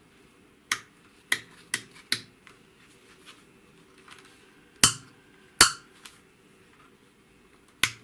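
Small metal toggle switches on a test jig flipped by hand: seven sharp clicks, four in quick succession, then two, then one near the end. The switches set a binary zone code and pulse a validate line on an aircraft cabin temperature control module.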